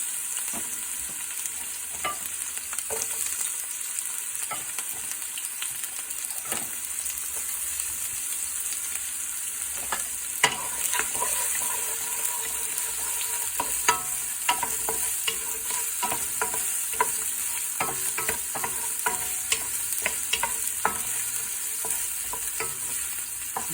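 Chopped onion and garlic sizzling in hot oil in a pan, a steady frying hiss, while a utensil stirs them with frequent clicks and scrapes against the pan, one sharper tap about halfway through.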